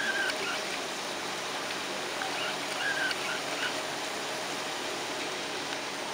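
Steady outdoor hiss of open air on a grey day, with a bird chirping a few short notes right at the start and again two to four seconds in.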